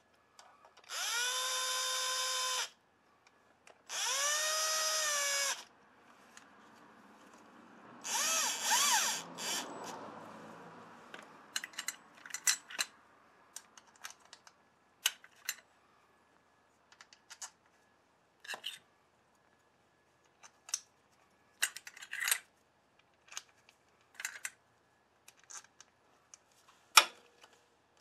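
Milwaukee cordless drill/driver running clutch cover bolts in until they bottom out. It makes three short whirring runs in the first ten seconds, its whine rising at each start and falling at each stop. These are followed by scattered metallic clicks and taps of bolts and tools being handled.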